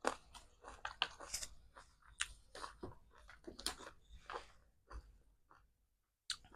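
Someone chewing momo dumplings: a quick run of short clicking mouth sounds for about five seconds, then only a few scattered clicks.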